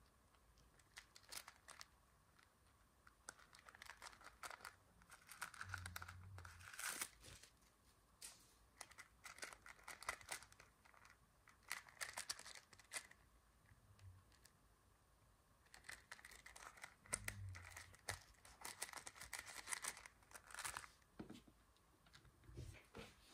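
Faint handling noise of a miniature faux-leather toy handbag turned over in the fingers: soft rustling and crinkling with scattered small clicks, and a few soft thumps as it is handled and set down on the table near the end.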